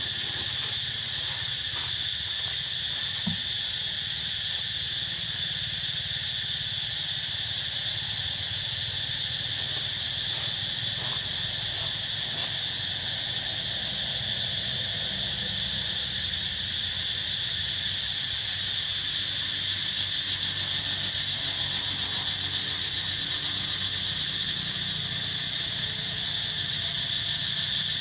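Steady insect chorus: a continuous high-pitched buzz that holds the same level throughout, with no break.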